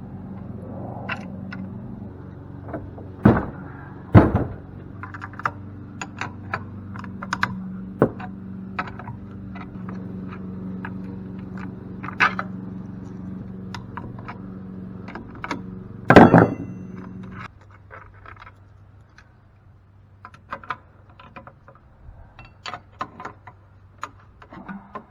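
Hand tools working on a cast-aluminum pump: a run of metal clicks, clanks and scrapes, with heavy knocks about three and four seconds in and a loud ringing metal clang about sixteen seconds in. A steady hum underneath stops suddenly about seventeen seconds in, and lighter ticking clicks follow.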